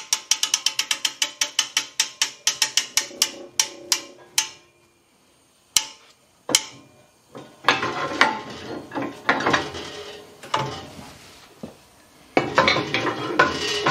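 Fast run of ratchet-like clicks, about six a second, slowing and stopping about four and a half seconds in, as the hydraulic press is reset for more ram travel. Then two single clicks and irregular metallic clatter of parts being handled.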